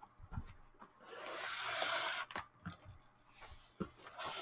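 A packaging box being pulled out of its snug sleeve: a rough sliding rub about a second long, with short scrapes and taps of the packaging before and after.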